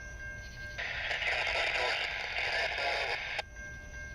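Two-way radio transmission on a scanner: it opens abruptly about a second in as a hissy, band-limited burst, cuts off with a click, and opens again right at the end.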